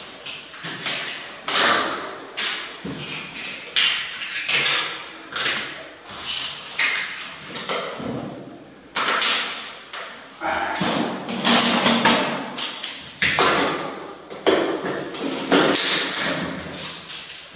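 Gloved hands working floor tiles held by plastic leveling clips: irregular knocks and taps mixed with longer scraping and sliding sounds, often about a second apart.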